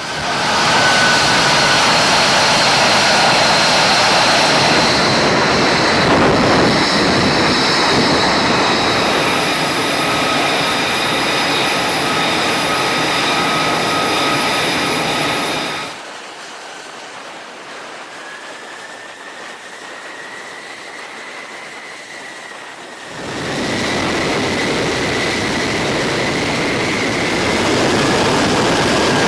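F-35C Lightning II jet engine noise: a loud, steady roar with high-pitched whines over it. It drops suddenly to a much quieter whine about sixteen seconds in, and the loud roar returns about seven seconds later.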